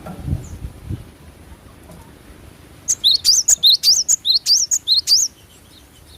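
Gelatik batu (cinereous tit) singing: a fast run of high, loud chirped notes, each sweeping up and down, about four or five a second for some two seconds starting about three seconds in. A few dull low thumps come in the first second.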